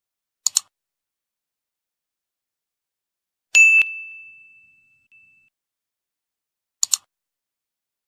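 Computer mouse-click sound effects and a notification-bell ding: a quick double click about half a second in, a single bright ding about halfway through that rings out and fades over about a second and a half, and another quick double click near the end.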